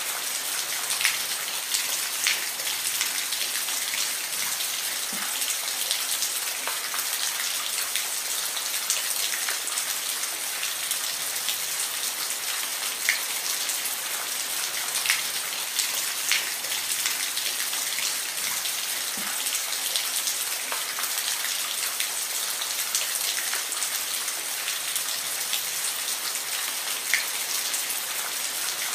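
Steady rain falling, an even hiss with individual drops striking a surface every second or so.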